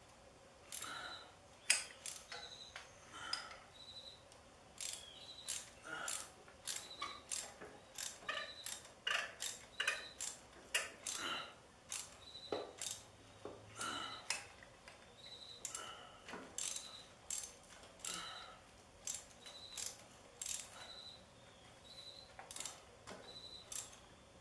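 Hand socket ratchet clicking in irregular short runs as it turns a bolt on a rear-tine tiller's tine shaft.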